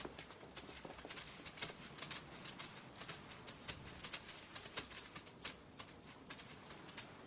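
Faint footsteps and shuffling of a group of people walking, heard as irregular soft clicks and scuffs several times a second over a light hiss.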